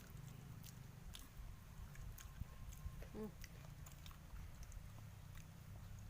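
Fried cassava being chewed and bitten, faint, with scattered small crisp clicks. A brief murmur of voice comes about three seconds in.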